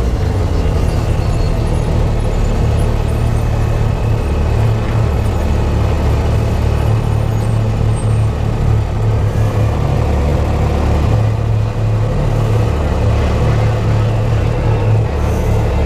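Supercharged Yamaha YXZ1000R's three-cylinder engine running steadily at low revs, heard from inside the cab as the side-by-side creeps along and idles in line behind another machine.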